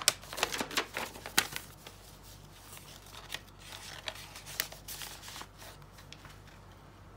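Paper rustling and crinkling as a large folded sheet in a handmade paper journal is folded shut and the pages are turned. A burst of crisp crackles comes in the first second and a half, then softer, sparser rustles that die down.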